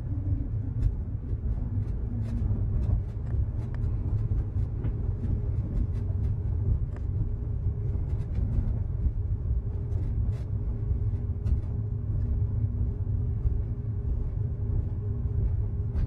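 Low, steady rumble of an ULTra driverless pod running along its concrete guideway on rubber tyres, heard from inside the cabin, with faint electric drive hum and light scattered ticks and rattles.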